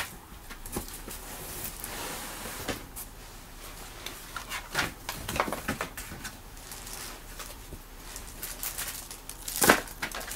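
Small objects being handled and moved about on a desk: scattered rustling, clicks and light knocks, with one sharper click near the end.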